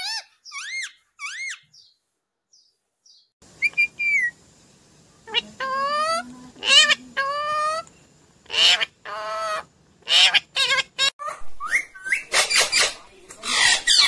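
Indian ringneck parakeet calling in a run of short, pitched chirps and whistled notes, with harsher squawking calls in the second half. There is a brief pause about two seconds in.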